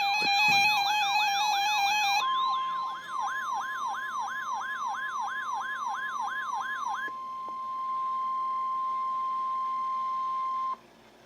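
A fast siren yelp, sweeping up and down about three times a second. About two seconds in, NOAA Weather Radio's steady 1050 Hz warning alarm tone comes in beneath it. The siren stops about seven seconds in, and the alarm tone sounds on alone until it cuts off suddenly near the end.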